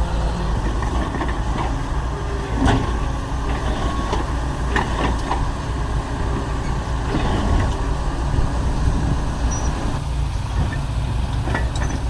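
Diesel engines of heavy earthmoving machinery running steadily, with a few short metallic knocks.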